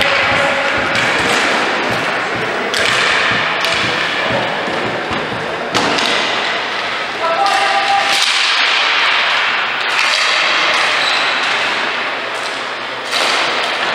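Live sound of a ball hockey game in a rink: players' voices and shouts over a steady noisy din, with repeated sharp knocks and thuds of sticks and the ball against the boards and glass.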